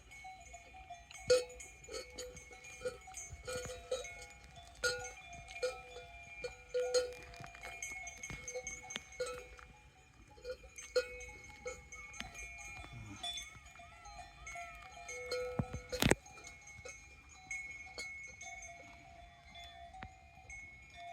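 Bells on cows clanking irregularly, each strike ringing on, with a single sharp knock about sixteen seconds in that is the loudest sound.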